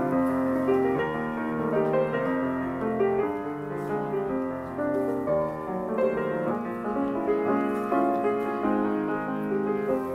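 C. Bechstein grand piano played by hand: a continuous flowing piece with many overlapping notes, mostly in the middle register.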